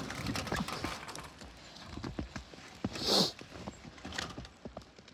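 Footsteps crunching irregularly through snow, with a short scraping rustle about three seconds in.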